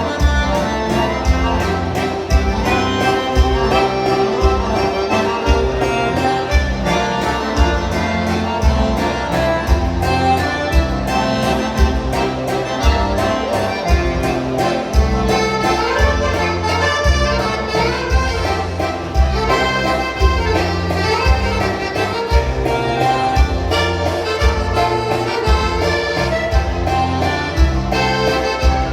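Lively dance music led by an accordion over a steady, evenly pulsing bass and drum beat.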